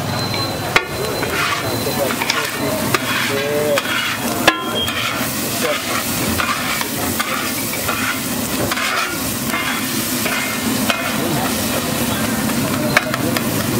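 Flat metal spatula chopping and scraping scrambled egg across a large flat griddle (tawa) in quick, repeated strokes, about two a second, over the sizzle of the frying egg. A few sharp knocks stand out where the spatula hits the griddle, near the start, around the middle and near the end.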